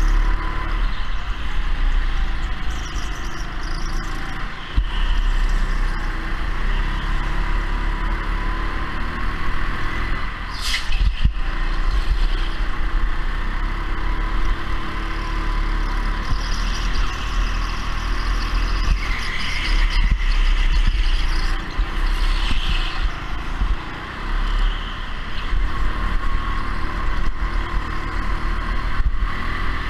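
Racing go-kart running at speed, heard from on board: a steady mechanical drone with a noisy rush over it and a faint tone that slowly shifts up and down. There is one brief sharp knock about ten seconds in.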